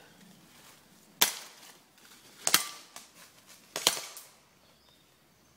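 Airsoft gun firing three single shots, sharp cracks about a second and a half apart.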